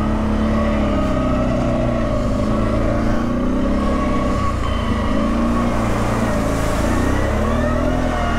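Off-road vehicle engine running under load over rough ground, its revs rising and falling in repeated swells every second or two.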